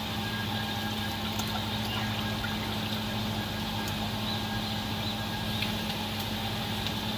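A steady low mechanical hum, like a motor or fan running, over a constant hiss, with a few faint light clicks.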